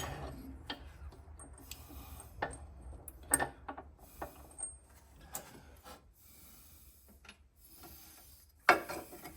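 Scattered clicks and light knocks of small metal mower parts being handled and fitted (washer, pulley and bolt of a belt tensioner), with a sharper knock about three and a half seconds in and another near the end.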